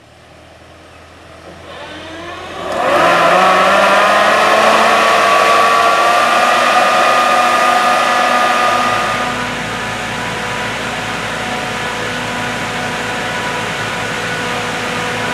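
John Deere 5820 tractor running a Myers air-blast sprayer while it sprays hops. The sound fades in, and about three seconds in the blower's whine comes up loud, rising a little before holding steady. Just past the middle it drops to a quieter, steady tractor engine sound.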